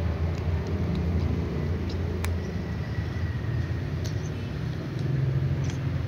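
Steady low rumble with a few faint scattered clicks.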